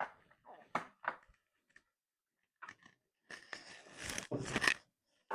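Small plastic clicks and taps from handling a portable radio's casing, then a loud crunching, crackling scrape lasting about a second and a half near the end as the case is worked apart.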